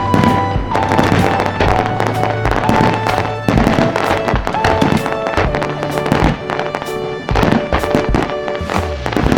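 Fireworks bursting, a rapid, irregular string of sharp bangs, over loud music with long held notes.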